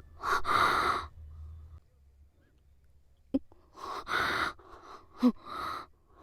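A woman crying: breathy sobs and gasping breaths in a few short bursts, one near the start and more about two-thirds of the way in, with quiet pauses between.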